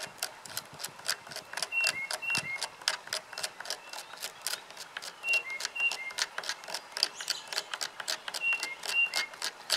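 A jigsaw blade scraping along a piece of wood in quick, even strokes, about four a second, shaving off fine dust. A bird repeats a short two-note chirp about every three seconds.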